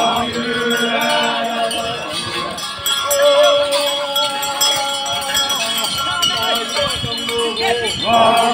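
A group of men chanting together in a Nocte hunting-dance chant, several voices holding long, drawn-out notes that rise and fall.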